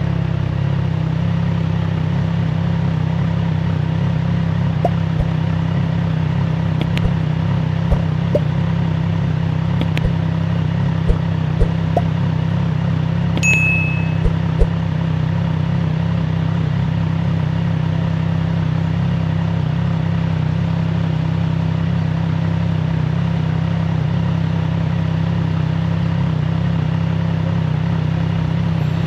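Triumph Trident 660 inline three-cylinder engine with a FireTong aftermarket exhaust running steadily at an even pitch. A few sharp clicks come through in the first half, and a brief high beep sounds about halfway.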